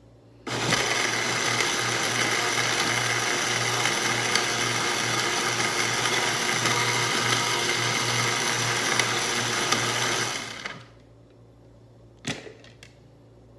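Countertop blender running at a steady speed for about ten seconds, pureeing salsa, then winding down. A short knock follows a little after it stops.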